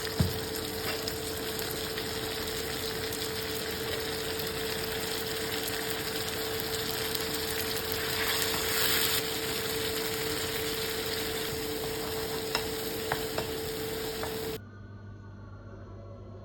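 Food frying and sizzling in hot oil in a pan while it is stirred, with a few sharp clicks of a utensil; a steady tone runs under the sizzle. About fourteen seconds in it stops abruptly, leaving a quieter low hum.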